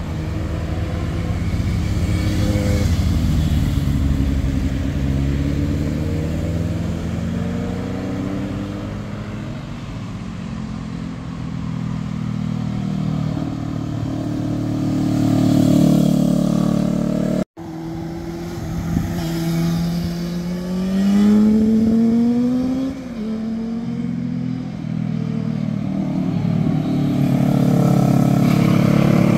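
Motorcycles riding one after another through a hairpin bend, their engines falling and rising in pitch as the riders roll off and accelerate out of the curve. The sound cuts out for a moment a little past halfway, then another bike's engine revs up in a rising whine.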